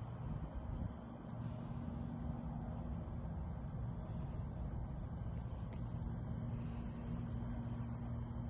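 Steady chirring of insects such as crickets, growing louder about six seconds in, over a low rumble.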